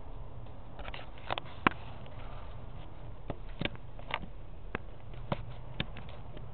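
A common marmoset close up at the microphone, with about a dozen irregular short clicks and taps; the loudest comes about one and a half seconds in.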